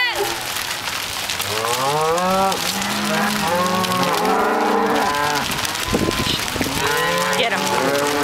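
Herd of cattle mooing and bawling, many overlapping calls, one after another, some long and bending in pitch.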